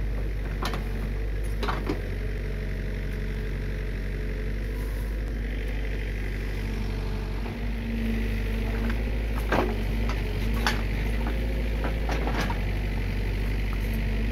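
Komatsu PC45 mini excavator's diesel engine running steadily as the bucket digs, getting a little louder a little over halfway through. A few sharp knocks from the bucket and its teeth working the soil and debris.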